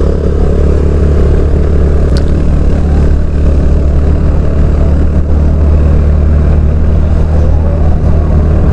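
Motorcycle engine running at a steady cruise while riding, a low even drone with road and wind noise over it.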